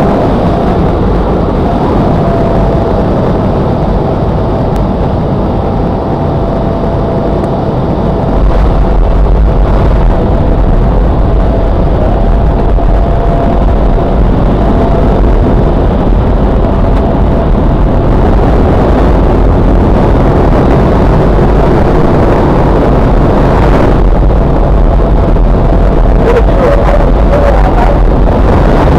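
Loud steady drone of a skydiving jump plane's engine and propeller heard inside the cabin, with a thin steady tone over it. The low rumble gets louder and heavier about eight seconds in.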